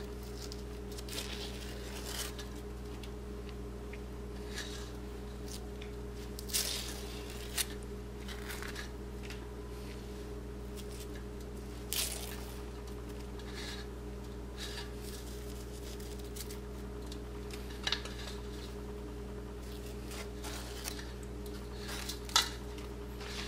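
Wax paper being peeled off the underside of a baked cake, with soft rustling and a few short clinks and knocks against a stainless steel plate as the cake is handled, over a steady low hum.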